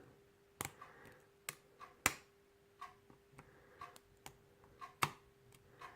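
Irregular sharp clicks of a lock pick working the pin stacks of a pin-tumbler lock held in a false set, about a dozen over the span, the loudest about two seconds in. A faint steady hum lies underneath.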